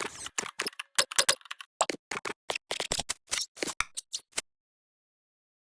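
A quick, irregular run of sharp clicks, a few a second and some in close pairs, that stops about four and a half seconds in.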